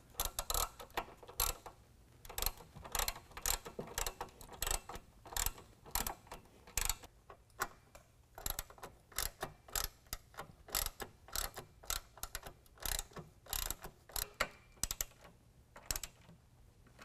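Hand ratchet clicking in quick runs of strokes as a T50 Torx bit tightens the door pin bolts on the hinges, with a short pause about halfway through.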